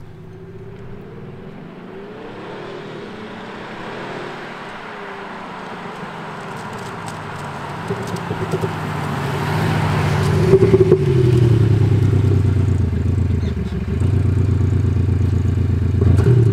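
Mercedes-Benz E200 Cabriolet's four-cylinder engine, voiced through an aftermarket active sound exhaust module, accelerating toward and past. The pitch rises and falls with the revs, and it grows louder, with a few crackling pops as it goes by. There is a brief drop near the end, like a gear change, before it pulls on.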